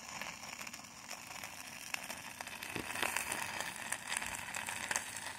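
Leftover Chinese food heating in a stainless pot on a small camp stove: a faint crackle with a few scattered ticks over a soft steady hiss.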